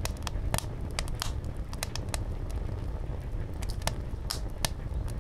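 Large wooden bonfire crackling, with sharp irregular pops a few times a second over a low steady rumble.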